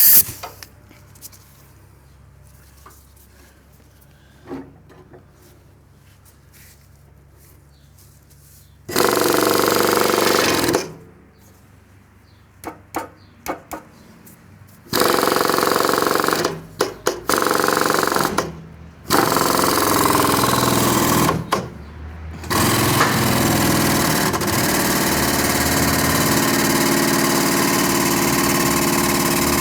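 Electric-hydraulic power unit of a vehicle lift running in short bursts as the truck is raised, then running steadily through the last seven seconds or so.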